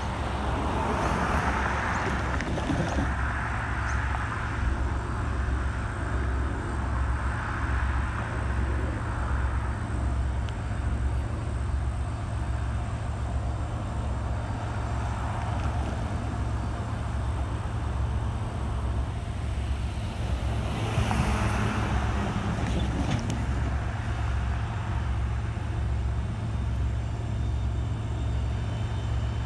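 Road traffic passing the crossing over a steady low rumble. Vehicles swell past in the first few seconds and again about two-thirds of the way through.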